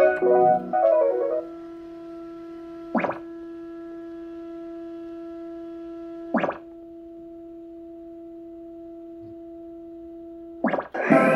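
Pachislo slot machine in play: a short electronic jingle, then a steady electronic tone held while the reels spin. Three sharp clicks, one every three to four seconds, mark the reel-stop buttons being pressed. A loud electronic tune starts right after the third press, near the end.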